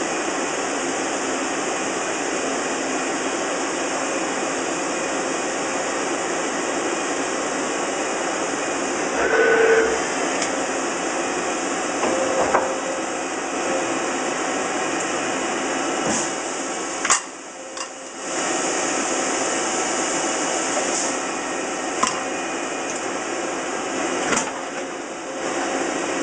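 Miyano ANC-45S CNC lathe running a machining cycle: a steady hiss of machine noise with a few sharp clicks and knocks in the second half. About two-thirds of the way through, the noise drops away for about a second.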